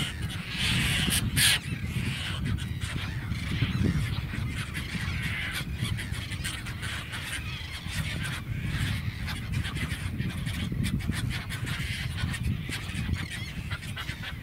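A flock of seabirds circling overhead, calling continuously in many short overlapping cries, with wind rumbling on the microphone.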